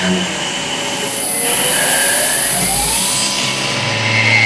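TRAUB TNL32 sliding-headstock CNC lathe machining: a steady mechanical whine and hiss. One tone rises in pitch a little past two seconds in, holds, and falls away near the end.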